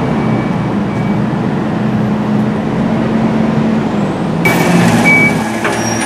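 Side-loader garbage truck's diesel engine running steadily, with a faint high beep coming and going in the first second and again near the end. About four and a half seconds in, the sound changes suddenly to a brighter, hissier mix.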